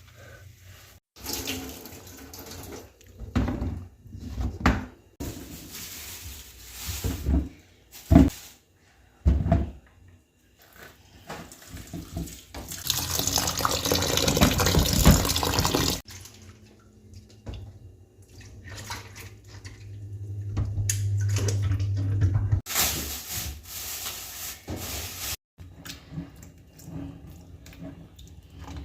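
Kitchen tap running in a few spells into a sink, between clatter and knocks of items being handled and rinsed.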